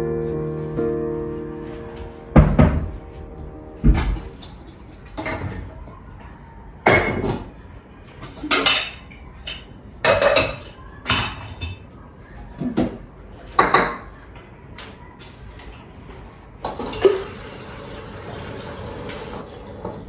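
Metal pots, pans and lids clattering and knocking as they are taken from a cupboard and set on the stove, about ten separate clanks with pauses between them. Over the last few seconds there is a steady rushing sound.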